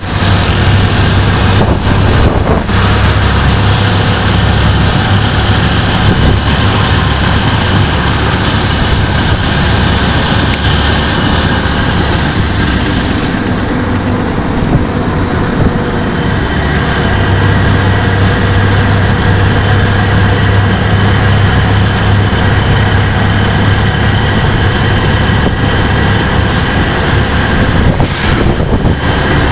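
Vehicle driving along a road: steady engine and road noise, with a low hum that fades for a few seconds around the middle and then comes back.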